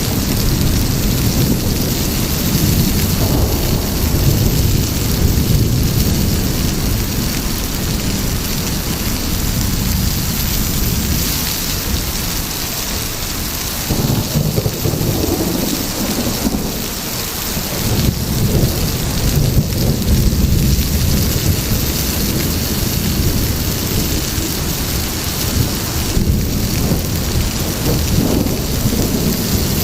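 Heavy rain falling steadily, with low rolling thunder that swells and eases underneath.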